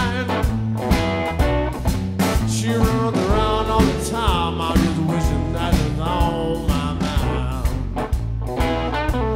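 Background music: an upbeat song with guitar and a steady drum beat.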